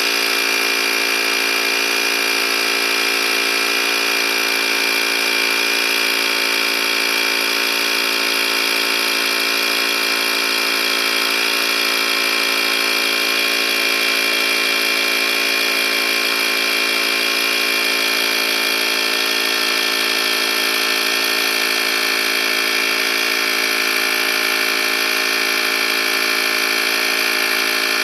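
Portable tire compressor running steadily while inflating a motorcycle tire from about 21 toward its preset 32 psi. The motor and pump give an even buzzing hum with no change in pitch.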